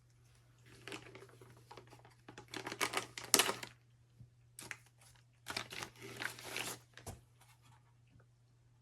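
A Mission First Tactical polymer rifle magazine being handled and unpacked: bursts of rustling and sharp clicking.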